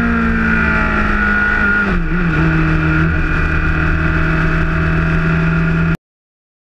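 BMW K1300S inline-four engine running at road speed, heard from a camera on its fairing, with low wind rumble on the microphone. The engine note sags slowly, drops about two seconds in, then holds steady before cutting off suddenly near the end.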